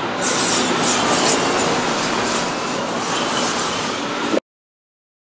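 Steady loud rushing noise with a faint low hum, cutting off abruptly about four seconds in.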